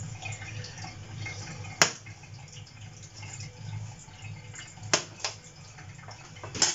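Cleaver cutting king bolete mushroom pieces on a chopping board: a few sharp, separate knocks of the blade on the board, with quiet handling of the mushroom pieces between.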